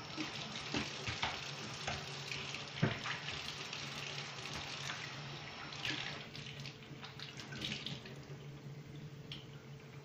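Kitchen tap running into a stainless steel sink while dishes are rinsed under it, with clinks of dishes against the sink. The water sound grows quieter in the second half.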